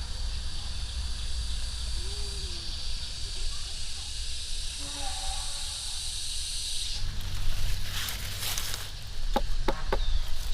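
A steady, high-pitched insect buzz, like a cicada chorus, that cuts off suddenly about seven seconds in, over a low rumble. A few sharp knocks follow near the end.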